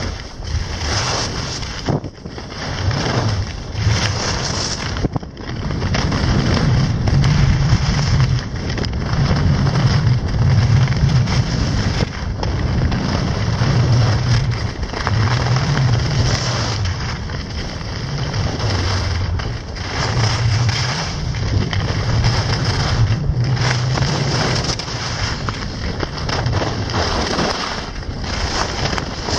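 Wind buffeting the microphone of a skier's camera, with the hiss of skis sliding over packed snow during a downhill run. The rumble swells and eases irregularly, with brief drops every few seconds in the first part.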